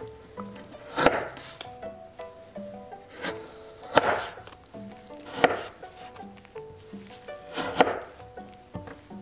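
Chef's knife slicing through burdock root and striking the cutting board: four sharp chops about one to three seconds apart, with fainter cuts between them.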